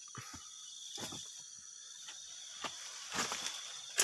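A steady high buzz of insects, with a few dull knocks and rustles as a harvester cuts ripe fruit bunches from a young oil palm, and a sharp click near the end.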